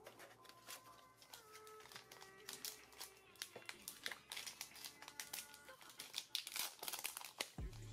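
Foil wrapper of a Kayou Naruto booster pack crinkling in rapid bursts as fingers work it open, busier in the second half. Soft background music plays underneath.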